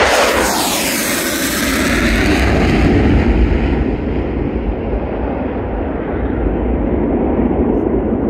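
Twin General Electric F404 jet engines of a Swiss Air Force F/A-18 Hornet, heard as it takes off and climbs away. The loud jet noise sweeps down in pitch as the aircraft passes. Its high hiss fades from about four seconds in, while a low rumble lingers.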